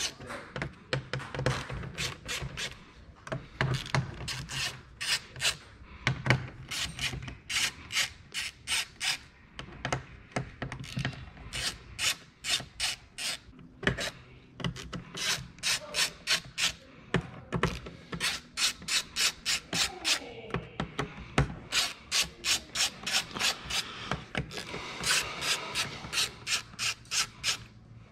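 Small hand ratchet clicking in quick runs as the 4 mm cap bolts holding a race car fuel cell's access plate are backed out.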